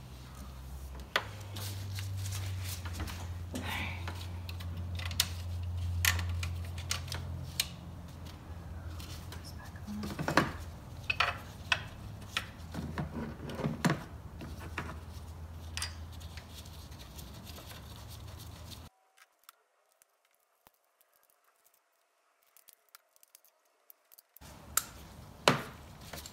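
Ratchet wrench clicking and metal tools knocking as the replacement alternator is bolted into place, in scattered sharp clicks over a steady low hum. The sound drops out for several seconds near the end, then a few clicks return.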